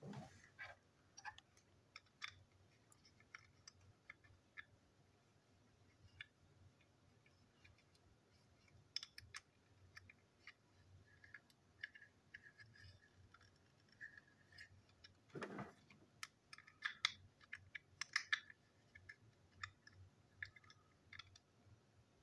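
Faint, scattered clicks and taps of small plastic toy-locomotive parts being handled, with one dull knock about two-thirds of the way through.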